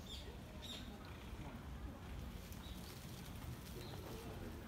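Faint outdoor background: a steady low rumble with a few short, high chirps and faint distant voices.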